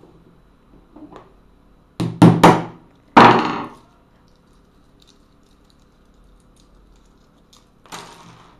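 Hammer blows cracking a walnut on a tablet's protected screen: three quick strikes about two seconds in, then a harder fourth a second later. A lighter knock of shell pieces and handling comes near the end.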